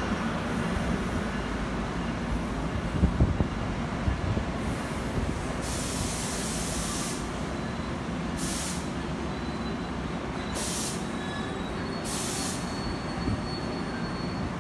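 A commuter train running at the station platform: a steady rumble of the railcars with a few knocks about three seconds in, and four short bursts of air hissing about halfway through and near the end.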